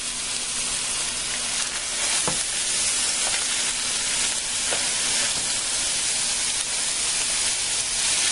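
Ground beef sizzling as it fries in hot cooking oil in a stainless steel frying pan: a steady hiss, a little louder after about two seconds, with a few faint taps.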